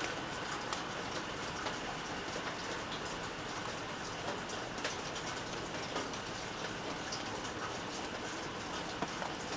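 Steady rain falling, an even hiss with scattered sharp drips tapping on a surface.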